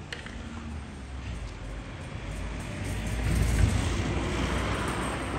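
A motor vehicle passing by, its engine rumble and tyre noise swelling to a peak about three and a half seconds in and then fading.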